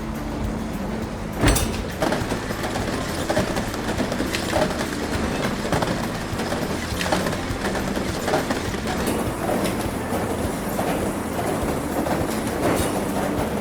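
Antique Fitzgerald rod-line pumping rig running, with a continuous irregular clatter of metallic knocks, clanks and creaks from the rods and machinery. One loud knock stands out about one and a half seconds in.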